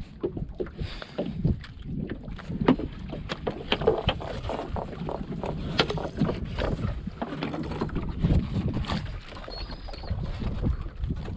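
A wet gillnet being hauled over a small boat's gunwale and fish being picked from the mesh: irregular knocks, clicks and rustles. Water slaps the hull, with wind on the microphone.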